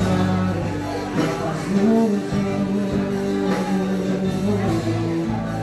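Church worship band music with guitar and singing.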